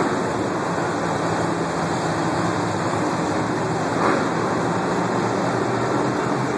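Several monster truck engines running in a stadium arena: a steady low drone under a wash of stadium noise, with a brief louder swell about four seconds in.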